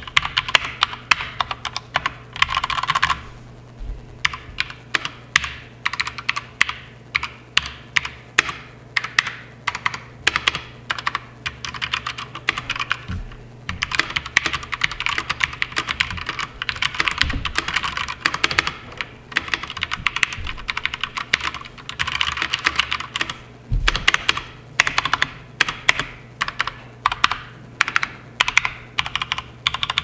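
Fast continuous typing on Durgod K320 TKL mechanical keyboards: first the board with Cherry MX Red switches, then, partway through, the one with Cherry MX Speed Silver switches. Rapid clacking keystrokes with a couple of brief pauses.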